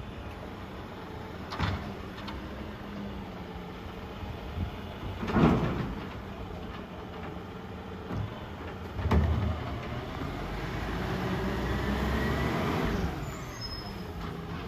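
Volvo garbage truck with a Superior Pak body running steadily while collecting bins, with a few sharp clunks, the loudest about five seconds in. In the second half the engine note swells, then eases off near the end.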